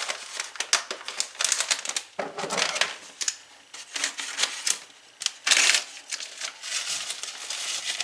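Soup-mix packets crinkling and rustling as dry onion soup mix is shaken out of them into a glass bowl of broth, with irregular clicks and taps. The loudest rustle comes a little past halfway.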